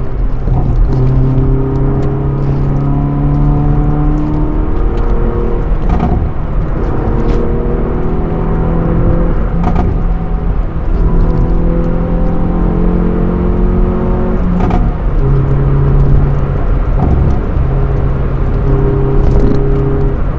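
Hyundai Veloster N's turbocharged four-cylinder engine heard from inside the cabin, pulling hard. The engine note climbs in pitch, then drops back at each upshift of the manual gearbox, several times over, with a short sharp crack at some of the shifts.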